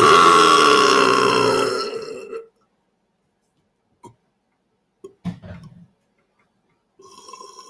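A man's long, loud belch lasting about two and a half seconds, brought up from gulped carbonated soda. A few brief faint sounds follow, and there is a faint short pitched one near the end.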